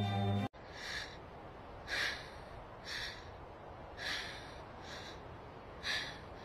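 Heavy panting, one breath about every second, faint over a low hiss. A short music sting cuts off about half a second in.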